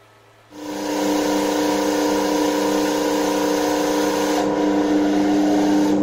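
Belt-driven motor-generator rig starting up about half a second in: a DC motor spins a 220 V washing machine universal motor, which is run as a generator. It comes up to speed within about a second and then runs at a steady speed with a steady whine of several tones.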